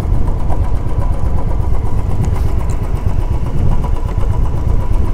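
Motorcycle engine running steadily, a loud, even low rumble.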